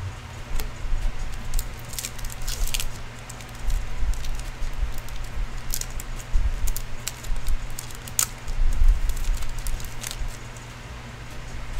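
Plastic trading-card pack wrapper crinkling and cards sliding against each other as a pack of hockey cards is torn open and emptied by hand. Irregular crackles and light bumps sit over a steady low hum.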